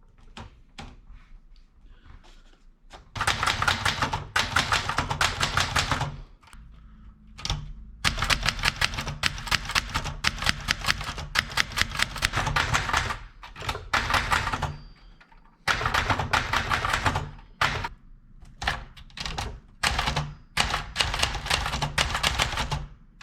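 Typewriter keys being struck in fast runs of sharp clicks, several bursts of typing a few seconds long with brief pauses between them.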